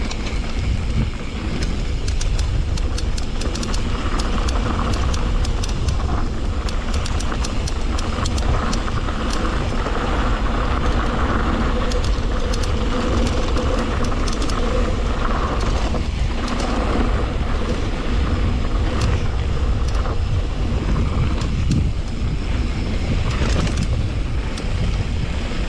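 Wind rumbling on the microphone of a helmet or chest camera while an electric mountain bike rides a rough trail, with many sharp ticks and rattles of tyres and bike over stones.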